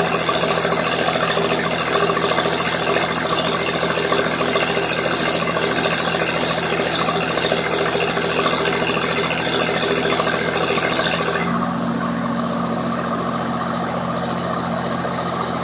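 Stick-welding arc crackling and hissing steadily as a large electrode burns, over the running diesel engine of a Lincoln SA-250 engine-drive welder. About eleven and a half seconds in, the arc breaks off suddenly and the welder's engine runs on alone with a steady hum.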